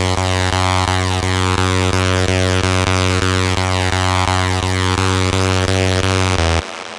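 Electronic dance music: a loud, sustained synth bass chord with rapid even pulsing, cutting off abruptly about six and a half seconds in.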